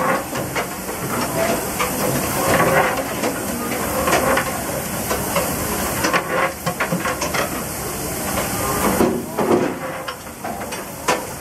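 Steady hiss of steam at a JNR Class C62 steam locomotive, with scattered metallic knocks.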